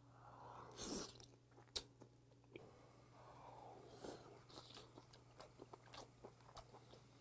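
A person slurping raw baby octopus tentacles into the mouth, twice (about a second in and again around four seconds), then chewing with a run of small wet mouth clicks. Quiet and close.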